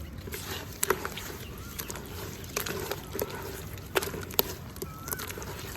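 Shallow water trickling over small pebbles: a steady wash with irregular sharp splashes and plinks, and a few short chirping plops.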